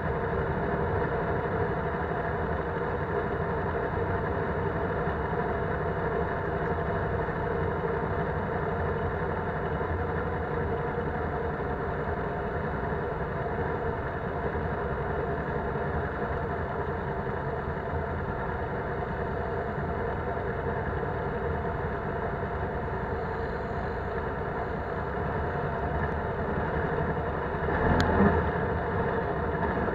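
Polaris Sportsman 570 ATV's single-cylinder engine running steadily while riding along a dirt trail. Near the end there is a single sharp knock.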